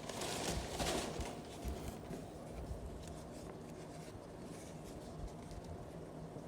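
Faint handling noises: a short rustle near the start, then scattered light clicks and taps over a low steady hum.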